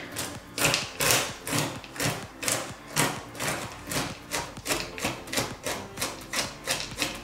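A knife chopping whole hazelnuts on a cutting board: a run of sharp chops about two a second, quickening to about three a second in the second half.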